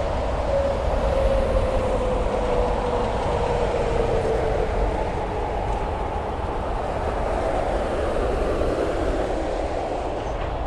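Interstate traffic with tractor-trailers passing: a steady rumble of tyre and engine noise. A whine slowly drops in pitch over the first five seconds or so as a truck goes by.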